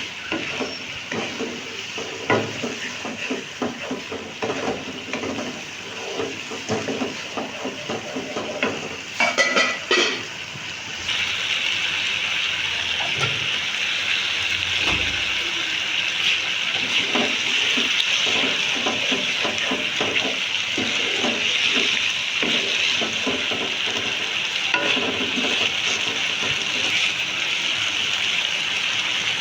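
Okra masala frying in a pan: a steady sizzle with a spatula stirring and scraping, and a brief clatter about a third of the way in, after which the sizzle jumps louder and stays steady.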